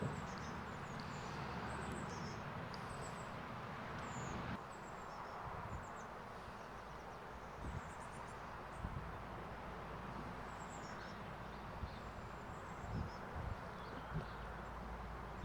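Steady wind rushing over an open paddock, with small birds chirping on and off in the background and a few soft low thumps.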